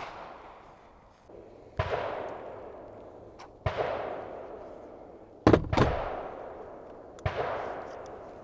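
Gunshots about every two seconds, each a sharp crack trailing off in a long echo; around the middle two come close together.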